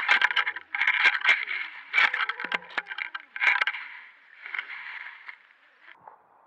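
Underwater camera rig scraping and knocking as it shifts on the sandy seabed. Several bursts of rough scraping with sharp clicks, dying away about five seconds in.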